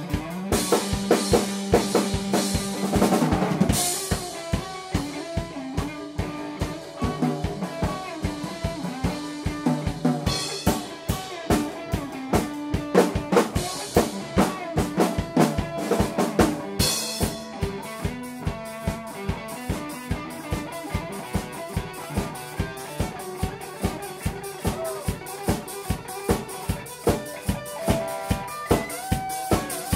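Live improvised rock jam by a drum kit, electric guitar and keyboard, with the drums keeping a steady beat of kick and snare hits and cymbal crashes a few times, under sustained guitar and keyboard notes.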